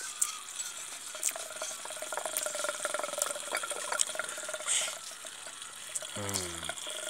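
Steady sound of running water, like a tap or pipe left flowing, with many small clicks and taps over it. A short voice with a falling pitch comes in about six seconds in.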